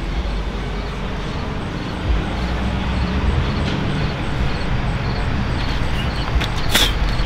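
Steady low outdoor background rumble, with a sharp click near the end.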